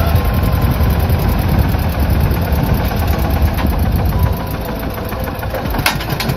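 Diesel tractor engine labouring at high throttle while the tractor is stuck, its rear tyres spinning and sinking into soft soil under an overloaded sugarcane trolley; about four seconds in the engine eases off.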